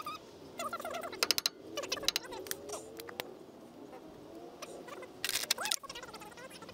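Socket ratchet clicking in short, quick runs, with a few single metallic clicks, as the nut on a freshly installed front wheel hub is run down. The densest run comes about five seconds in. Faint squeaky chirps sound in between.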